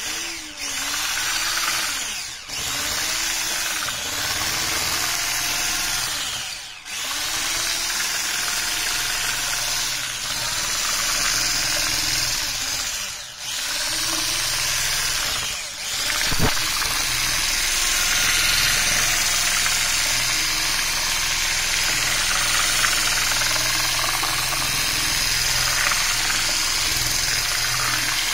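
Electric hand mixer running, its twin beaters whisking cocoa cake batter in a glass bowl. The motor sound dips briefly four times in the first sixteen seconds, then runs steadily.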